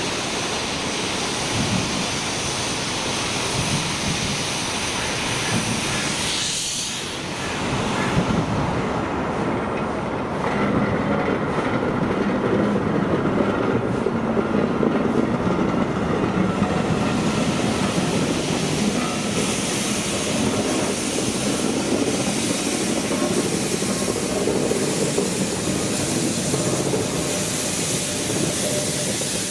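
LMS Stanier Black Five 4-6-0 steam locomotive moving slowly with a coach, steam hissing loudly from its front end. After a break about seven seconds in, the coach's wheels run over the rail joints close by, and the locomotive follows with a strong steam hiss.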